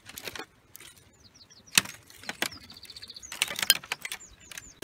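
Footsteps crunching and clinking on a thick layer of loose scallop shells, sharp clicks and rattles with one louder crunch near the middle. A few short bird chirps and a quick trill come through between the steps.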